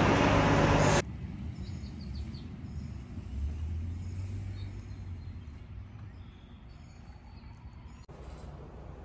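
Loud protest crowd noise with voices cuts off abruptly about a second in. Quiet outdoor ambience follows: a low rumble that swells and fades, and a few faint bird chirps.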